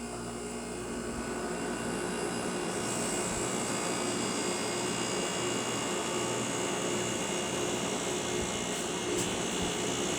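A 1996 Fedders 6,000 BTU window air conditioner running just after being switched on: a steady rush of blown air with a low hum, building over the first three seconds and then holding even.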